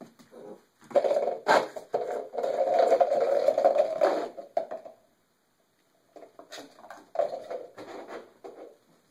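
A Brittany spaniel puppy scrabbling and scraping across a bare plywood floor as it plays and runs. A loud stretch of about three seconds has a sharp knock about one and a half seconds in, and a quieter stretch of scuffling follows near the end.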